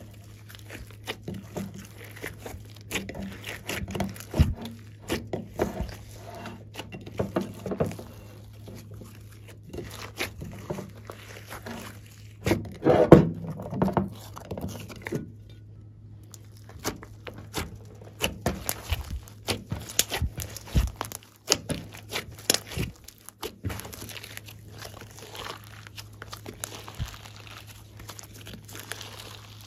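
Glossy slime mixed with clay and glitter being squeezed, folded and stretched by hand, giving a stream of sticky crackling clicks and squishes, with a denser, louder run of squelches about 13 seconds in. A steady low hum sits underneath.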